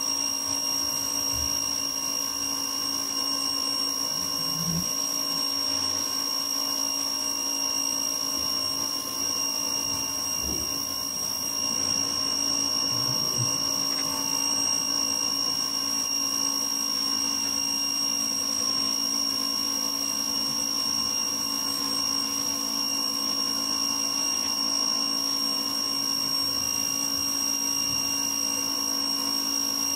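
Ryobi electric pressure washer running steadily, its motor and pump giving a constant high-pitched whine, over the hiss of the water jet spraying onto concrete.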